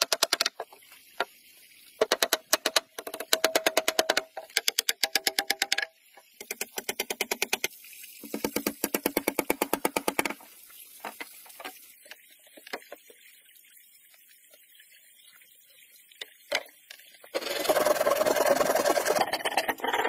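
Rapid runs of knocks from a wooden mallet striking a wooden plank, several quick bursts of a second or two with short gaps between, then a few single knocks. Near the end, a dense scraping on the wood lasts about three seconds.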